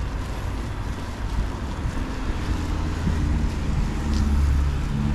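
Wind rumbling on the microphone, with a motor vehicle's engine hum growing louder from about two seconds in.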